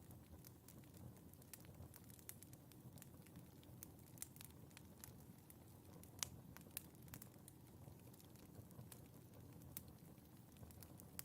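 Wood fire in a fireplace crackling quietly: irregular small pops and snaps over a steady low rush of the flames, with one sharper crack about six seconds in.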